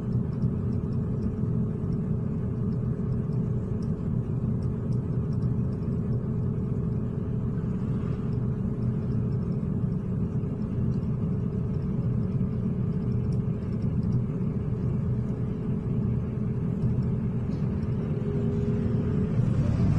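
City bus engine and road rumble heard from inside the cabin, steady throughout, with a tone that starts to shift near the end.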